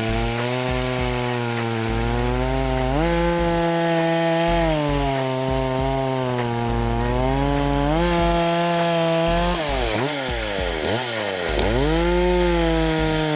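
Efco MT 8200 two-stroke chainsaw, with an 82 cc engine, running and cutting wood. Its engine pitch steps up about 3 s in, drops back, rises again near 8 s, then dips quickly two or three times around 10–11 s before coming back up.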